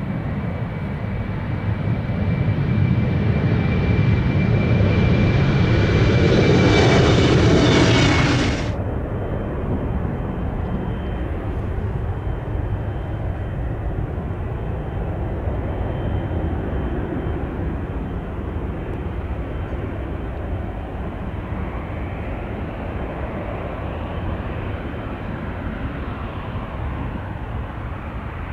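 GE90 turbofans of a Boeing 777 freighter taxiing at low thrust: a steady jet rumble with a thin fan whine. The noise swells over the first eight seconds, then drops abruptly, and a steadier, softer engine noise follows.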